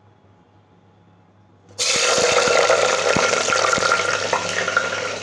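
After a near-quiet start, a loud, steady hiss with crackles starts suddenly about two seconds in: sliced onions and chillies sizzling as they hit hot oil in a pressure cooker.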